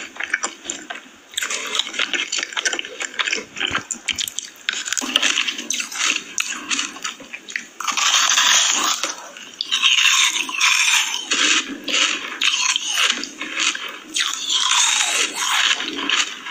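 Close-miked crunching and chewing of food in the mouth: dense, irregular crackly bites with wetter squishy chews between them.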